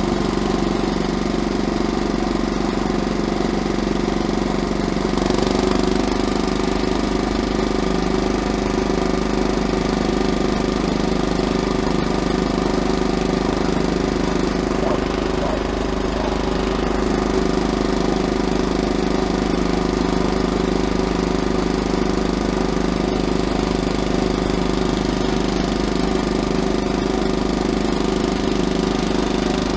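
Pasquali 945/601 mini tractor's diesel engine running steadily under load at full speed in third gear, its note shifting slightly about five seconds in.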